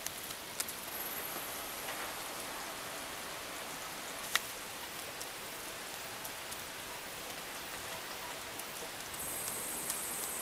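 A steady hissing patter with a few scattered sharp clicks, one louder about four seconds in. A faint high whine joins near the end.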